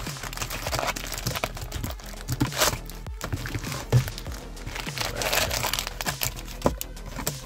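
Foil booster-pack wrappers crinkling and rustling as a stack of card packs is pulled out of its display box, in irregular bursts with a few sharp crackles.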